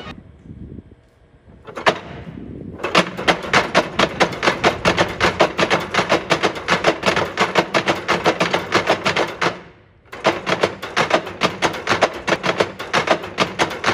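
A mechanical noise-maker sculpture's row of weighted wooden beaters knocking in a fast, even clatter, about six knocks a second. It breaks off for a moment about ten seconds in, then starts again.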